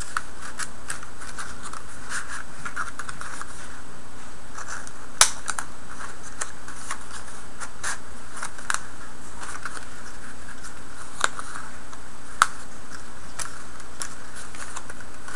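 Cardstock strips sliding and scraping against a die-cut paper base as they are woven over and under its slots, with light paper rustles and a few sharper clicks.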